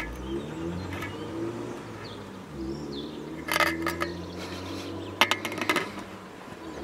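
Sharp clicks and clinks from fishing tackle being handled, a cluster of them loudest about five seconds in, over a low vehicle-engine drone.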